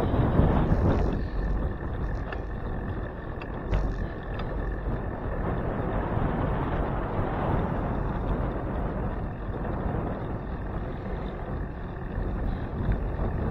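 Wind buffeting the microphone of a bicycle handlebar camera while riding, a steady low rumbling noise mixed with road noise, with a few light clicks about four seconds in.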